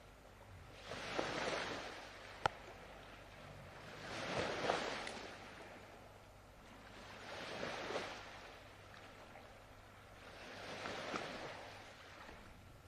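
Soft recorded ocean surf: gentle waves washing in and drawing back, four swells about three seconds apart. A single short click about two and a half seconds in.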